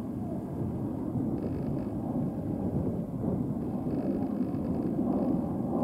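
Steady low rumble of a Wizz Air Airbus A320-family jet airliner's engines at climb power shortly after takeoff.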